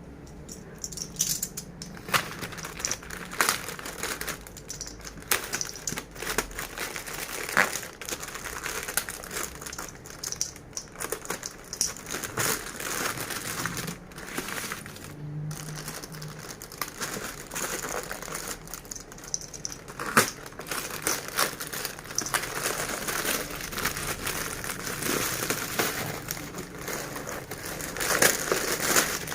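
Packaging being handled and opened: continuous crinkling and rustling, with frequent sharp clicks and knocks as things are pulled out and set down.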